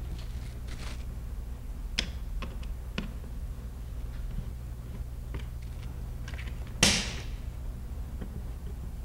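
Light clicks and taps of a small screwdriver and plastic battery retainer clip being fitted and screwed into a Honeywell L5100 alarm panel's plastic case. There are a few small clicks about two and three seconds in and one louder snap about seven seconds in, over a steady low hum.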